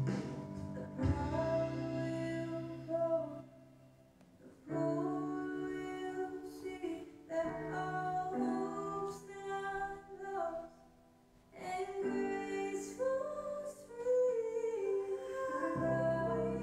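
Music with a singing voice over instrumental accompaniment, in slow sustained phrases, with two brief pauses about four and eleven seconds in.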